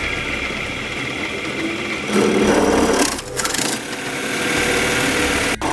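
Electric drill running a long 13 mm spiral wood bit through a block of pine pallet wood: a steady motor whine, growing louder and rougher for about a second, about two seconds in, as the bit cuts, then stopping suddenly near the end.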